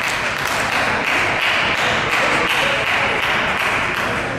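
Audience applauding: a dense run of many hands clapping that dies away near the end.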